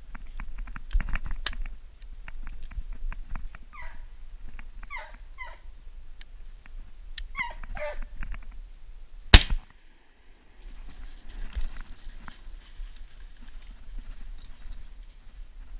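American foxhound baying on a fox hunt: several drawn-out, yelping calls. About nine seconds in comes a single very loud shotgun shot, and the sound cuts out briefly just after it. Crackling steps on the forest floor can be heard near the start.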